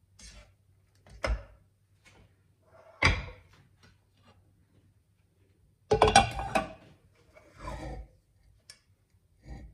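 Kitchen handling noises: a black plastic serving spoon knocking and scraping against a nonstick pot of rice several times, with a ceramic plate set down on the gas hob in a loud clatter about six seconds in.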